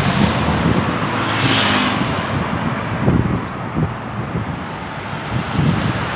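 Steady outdoor traffic noise with wind rumbling on the phone's microphone.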